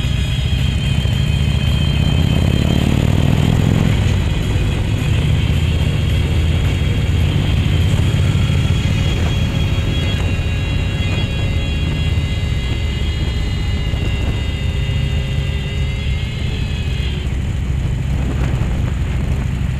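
Motorcycle engine running while riding, with road and wind noise. It rises in pitch as the bike accelerates about two to four seconds in, then holds a steady cruise. Music plays faintly over it until near the end.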